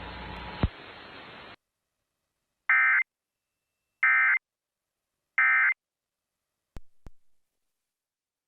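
Three short, buzzy Emergency Alert System end-of-message (EOM) data bursts, about a second and a half apart, marking the close of the alert. Before them, background hiss with a click cuts off to silence about a second and a half in, and a couple of faint clicks follow the bursts.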